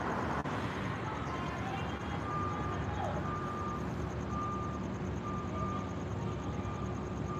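A vehicle's reversing alarm beeping faintly, one short beep about every second, starting about two seconds in, over a steady low rumble of engine and traffic.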